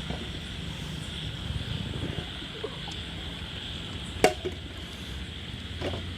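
Steady outdoor background with a high, even insect-like drone over a low hum, broken once about four seconds in by a single sharp click with a brief ringing tail.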